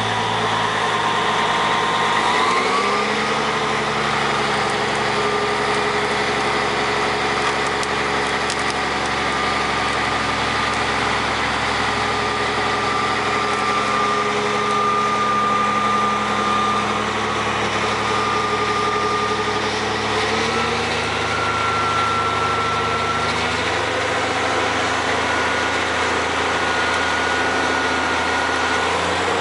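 Morbark 3800XL Wood Hog tracked grinder's diesel engine running steadily, its pitch stepping up slightly about two seconds in and again about twenty seconds in.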